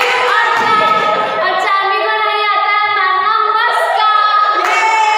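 High-pitched female voices singing, with held notes that slide up and down in pitch.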